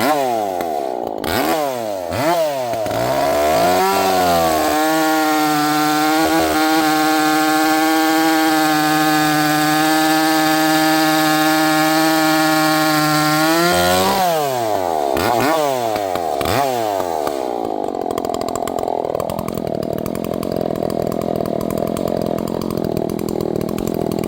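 Large two-stroke chainsaw blipped up and down a few times, then held at full throttle for about ten seconds while cutting through oak. It then drops back with a few more blips and settles to a low idle for the last several seconds.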